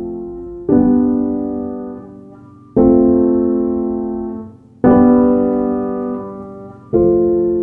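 Background piano music: slow chords struck about every two seconds, four in all, each one fading before the next.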